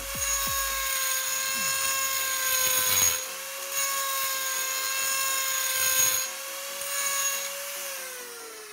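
Electric die grinder (Ryu RDG6-1, rated 28,000 rpm) running with a steady high whine while its 8 mm tungsten carbide burr grinds into a slot in a metal plate. The harsh cutting noise comes in several runs with short breaks as the burr is eased on and off. Near the end it is switched off and the whine falls in pitch as it winds down.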